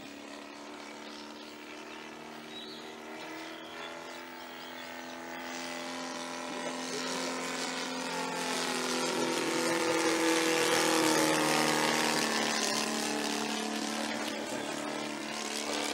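Saito FG-61TS 61 cc horizontally opposed twin-cylinder OHV four-stroke petrol engine of a 25%-scale radio-controlled Piper Pawnee, turning a 22×10 propeller in flight. It is heard passing: it grows steadily louder, peaks about ten to twelve seconds in, then fades a little.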